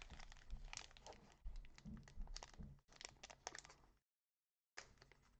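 Foil wrapper of a trading-card booster pack crinkling and tearing as it is worked open: a quiet run of crackles that stops dead about four seconds in, then a fainter bit of crinkling.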